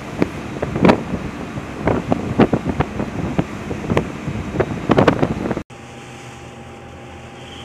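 Wind buffeting the microphone on the deck of a ship underway at sea, in irregular gusts. Near the end it cuts to a steady mechanical hum with a faint high whine.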